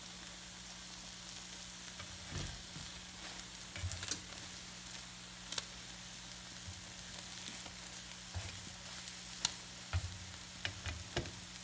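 Faint, steady hiss with scattered small clicks and crackles, and a faint low hum underneath.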